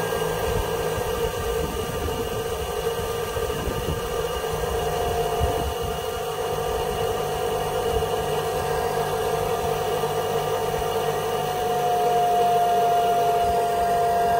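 Harris micro-hydro turbine and its alternator running with a steady hum. A higher whine comes in about five seconds in and grows louder, dropping slightly in pitch near the end, as the rheostat is turned to load the alternator down.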